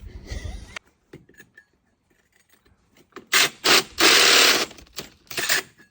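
Hole saw on a battery drill cutting in short trigger bursts: two brief spins, a longer cut of under a second, then two more quick bursts.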